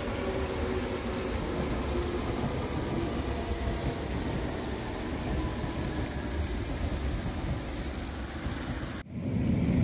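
London Underground train running over a brick railway viaduct: a steady rumble with a faint whine that fades over the first few seconds. The sound cuts off abruptly near the end.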